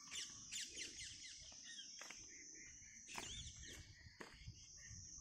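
Faint birdsong: a quick run of falling whistled notes in the first second and a half, and another call about three seconds in, over a steady high insect drone.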